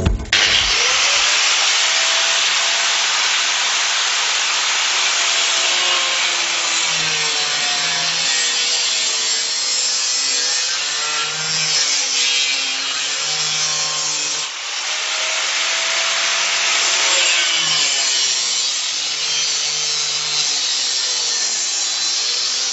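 Angle grinder with a thin cut-off disc cutting through steel square tubing: a continuous hissing screech with a wavering whine. It dips briefly about two-thirds through, then carries on.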